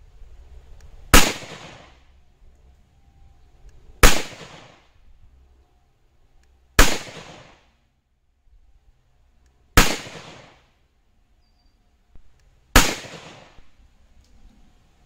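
Five single pistol shots from a Ruger 57, a 5.7x28mm pistol, fired at an even pace about three seconds apart. Each crack is followed by a short echoing tail.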